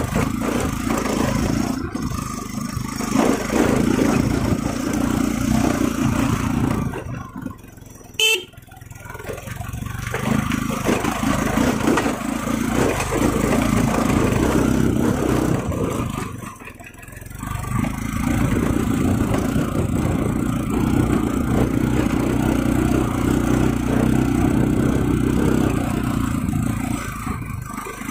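Motorcycle engine running as the bike rides over a rough, rocky dirt track. It eases off twice, about seven and about sixteen seconds in, then picks up again.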